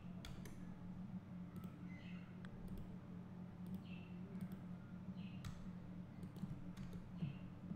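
Faint computer mouse clicks and keyboard key presses, a handful of separate clicks spread a second or more apart, over a steady low hum.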